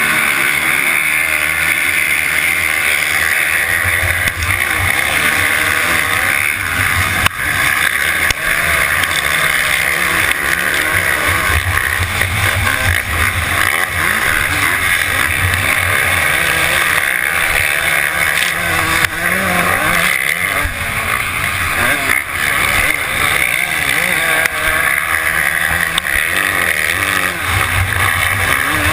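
Suzuki RM250 single-cylinder two-stroke dirt bike engine revving hard off the start gate and then racing at full throttle, heard from a helmet-mounted camera with wind rush and other motocross bikes mixed in.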